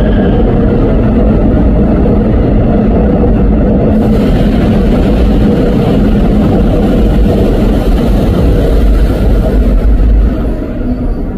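Seoul Subway Line 4 electric train departing, its cars running close past with a loud, steady rumble. A hiss joins in about four seconds in, and the sound drops somewhat about ten seconds in.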